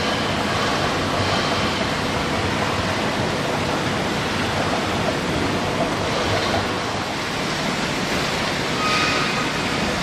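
Steady rushing roar from a molten-metal pour out of a tilted induction furnace into a ladle, with foundry noise around it.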